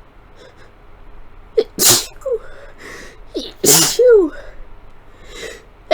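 Two sneezes from a person with a head cold, each with a sharp breath in just before it. The first comes about two seconds in and the second about four seconds in, each ending on a falling voiced sound.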